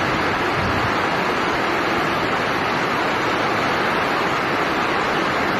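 Steady, even rushing noise of a squall-driven storm, with no distinct thunderclap.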